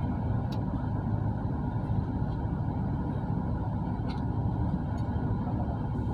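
Bus engine and road rumble heard from inside the passenger cabin: a steady low drone, with two faint ticks or rattles.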